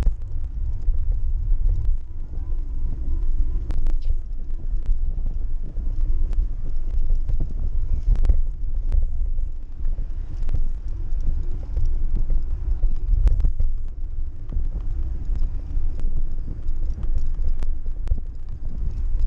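Wind buffeting the microphone of a camera mounted on a moving bicycle, a steady low rumble, with scattered clicks and knocks from the bike and carrier basket rattling over bumps.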